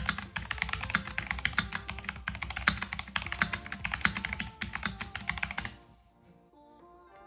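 Fast typing on a mechanical keyboard, a dense run of key clacks that stops about six seconds in. Soft background music plays underneath and is left alone at the end.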